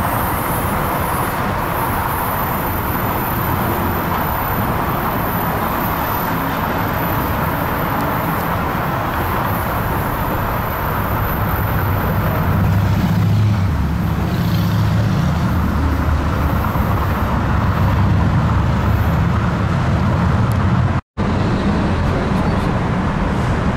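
Tri-Rail commuter train approaching a station platform: a steady rumbling that grows louder and deeper about halfway through as it draws near. The sound drops out for an instant near the end.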